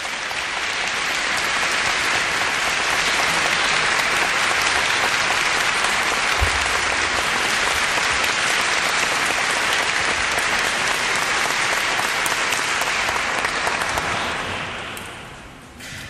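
An audience applauding steadily, the clapping dying away over the last two seconds.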